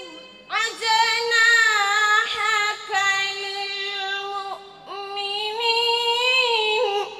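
A girl's voice reciting the Quran in melodic tajweed style, drawing out long held notes with wavering ornaments in two phrases, with a brief break for breath a little after halfway.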